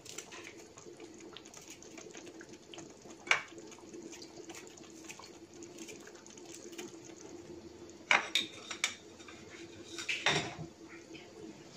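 Kitchen scissors snipping small chilies, giving a few sharp metal clicks: one about three seconds in, then a cluster between eight and ten seconds in. A faint steady hum runs underneath.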